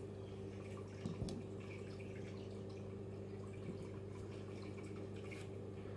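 Faint light clicks and taps of plywood model-kit parts being handled and pushed together, a small cluster about a second in, over a steady low hum.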